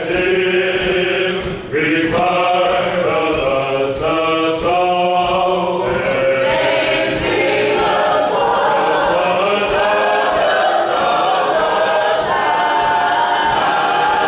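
Church choir singing: voices in short phrases at first, then longer held notes.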